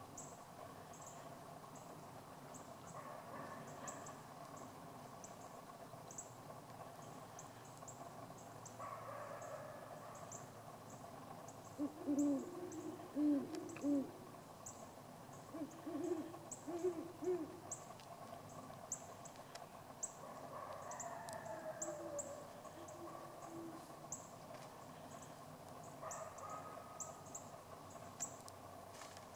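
Great horned owls hooting: two short runs of deep hoots near the middle. Behind them, coyotes yodel faintly, with wavering howls that rise and slide down in pitch, some longer than a second.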